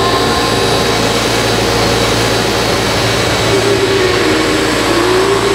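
Mikado Logo 700 electric RC helicopter in flight: a steady buzz from the spinning rotor blades, with a high motor whine above it. The pitch wavers slightly from about halfway through as the pilot changes power and pitch.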